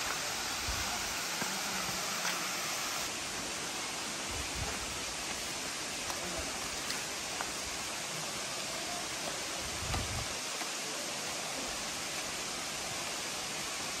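Steady rushing of a waterfall, an even wash of falling water, with a brief low thump about ten seconds in.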